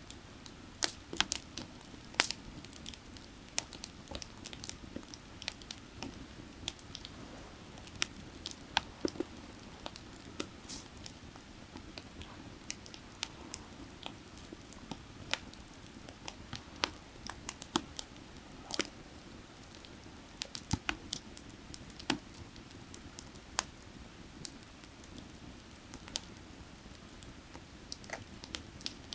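Wood fire burning, with irregular sharp crackles and pops over the steady rush of a creek.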